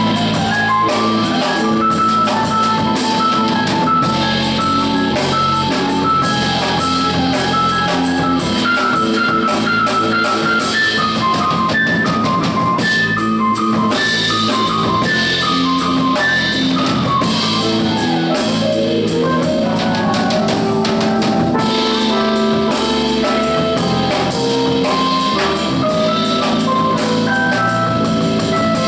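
Small jazz group playing a groove: a Fender Rhodes electric piano solo of quick runs of short notes over drum kit with steady cymbals and electric bass.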